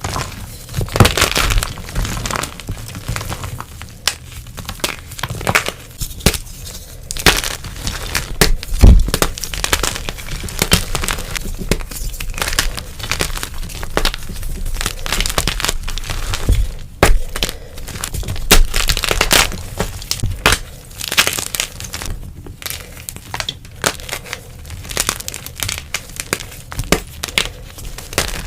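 Blocks of dyed gym chalk being crushed and crumbled by hand, a dense run of dry, crisp crunches and crackles with louder snaps scattered throughout.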